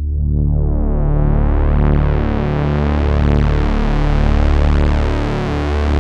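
Waldorf Microwave Mk1 hybrid wavetable synthesizer playing a dense, sustained low pad that grows steadily brighter over the first two seconds, with the low notes changing a couple of times. No external effects are used.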